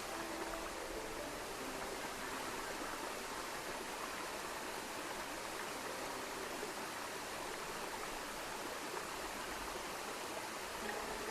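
Steady rush of water from a forest stream and waterfall, an even sound with no breaks.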